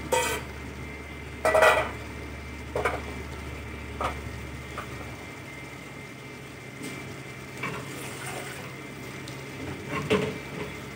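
A metal ladle clinks and scrapes against an open aluminium pressure cooker a handful of times, over the steady hiss of chicken gravy simmering inside.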